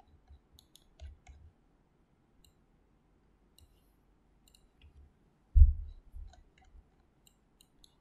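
Scattered computer mouse clicks, with a louder low thump a little past halfway through.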